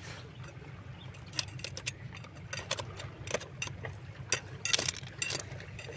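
Irregular light clicks and clinks of hard shell and stone being handled, a few per second, over a low steady hum.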